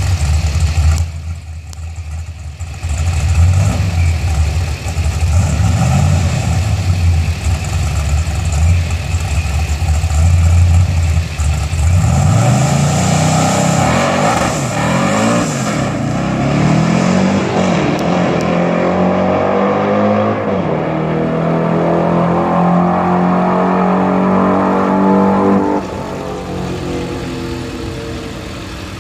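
Chevrolet Chevelle hot rod's engine idling loudly at the drag-strip start line, then launching about twelve seconds in: the note climbs in pitch, drops back and climbs again through the gear changes as the car pulls away down the track. Near the end the throttle closes and the sound falls away into the distance.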